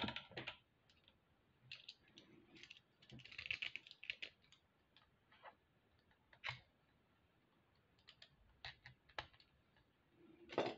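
Faint, scattered clicks and taps of a small hard plastic box being handled, with a short scraping stretch a few seconds in as an X-Acto knife cuts the tape sealing it.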